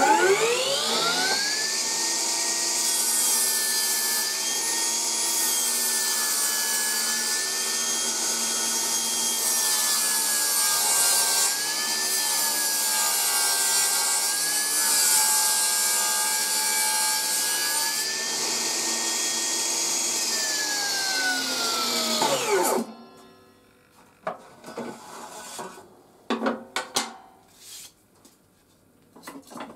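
HiKOKI C3610DRJ cordless table saw spinning up, then ripping a board into a one-centimetre strip, its motor whine dipping slightly under load while the blade cuts for about fifteen seconds. About 22 seconds in the motor is switched off and winds down with a falling whine, followed by a few light knocks of wood being handled.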